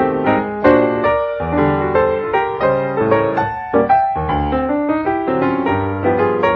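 Background piano music: single notes and chords struck one after another, each fading away.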